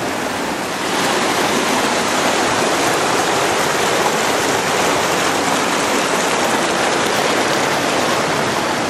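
Fast-flowing mountain creek rushing over rocks and rubble in a steady, loud roar. It grows louder about a second in.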